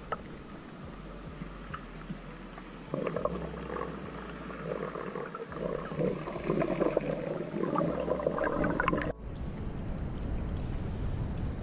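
Underwater sound heard through a submerged camera: a muffled water rush, joined about three seconds in by louder bubbling and gurgling. Near the end it changes abruptly to a steadier low rumble.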